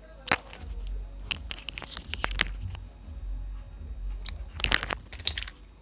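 Small clicks and scratches from hands and tools working on a phone's small parts, in two flurries about a second in and again near the end.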